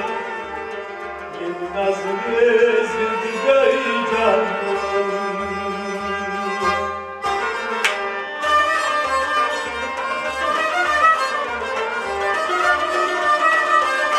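Kashmiri Sufi ensemble playing: harmonium, a bowed string instrument and a plucked long-necked lute over a steady beat on a goblet drum, with a short break in the melody about seven seconds in.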